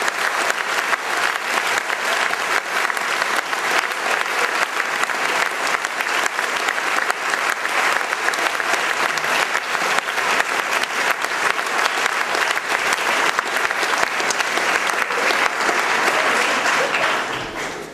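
Audience applauding: dense, steady clapping that dies away just before the end.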